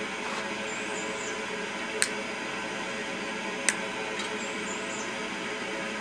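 Power vent water heater's exhaust blower running steadily, an even whir with a constant hum. Two sharp clicks, about two seconds in and again near four seconds, from zip-tie ends being snipped off.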